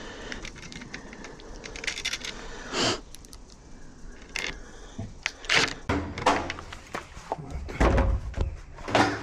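Scattered clicks and knocks with a few low thumps near the end: tools and UPVC door hardware being handled.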